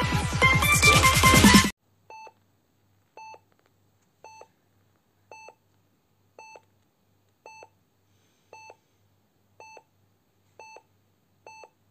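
Electronic intro music cuts off abruptly just under two seconds in. It is followed by short electronic beeps, all at the same pitch, repeating about once a second.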